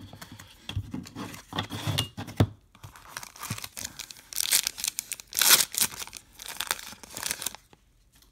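Foil wrapper of a trading card pack crinkling as it is handled, then torn open in a series of rips and crackles, loudest about five and a half seconds in. The crackling stops near the end.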